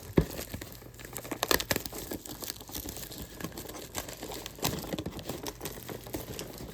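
Plastic shrink wrap crinkling and tearing in irregular crackles as it is peeled off a cardboard trading-card box.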